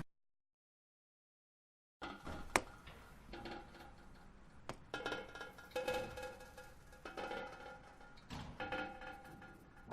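Dead silence for about two seconds, then a run of sharp clicks and short ringing clinks, as of small hard objects being struck or set down, sounding a few repeated pitches in an irregular rhythm.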